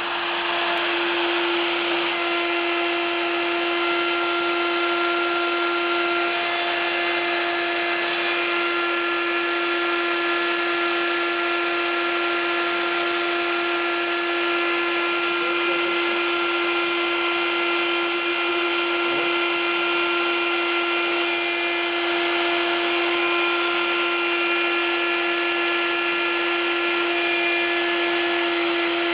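The spindle motor of a DIY CNC mill running steadily at speed, a constant whine over motor hiss.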